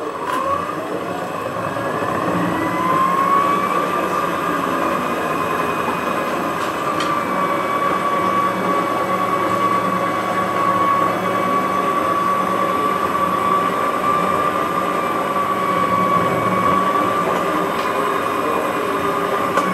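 Jaquet Droz Time Writer automaton's mechanism running as its pen writes out the time on a card. It makes a steady mechanical whir with a whining tone that rises over the first few seconds, then holds, and stops near the end.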